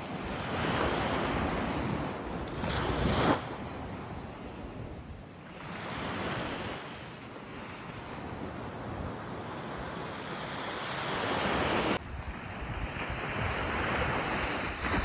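Sea surf breaking and washing up the sand in slow swells, with wind buffeting the microphone. The sound drops suddenly about twelve seconds in.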